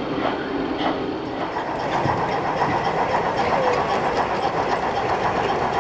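Gauge 1 model steam locomotive running, with a regular chuff about every 0.6 s at first. About a second in it gives way to a steadier running and rail noise over the background hum of a busy exhibition hall.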